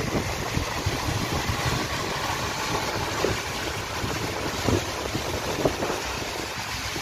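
Steady hiss of heavy rain and tyre spray as a coach and cars drive past on a wet highway, over a low engine drone, with wind rumbling on the microphone.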